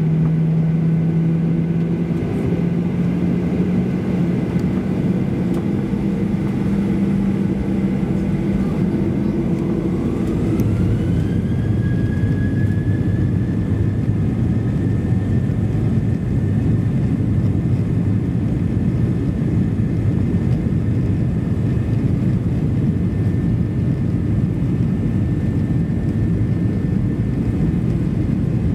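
Jet airliner engines heard from inside the cabin while taxiing: a steady rumble, with an engine whine that rises about ten seconds in and then holds.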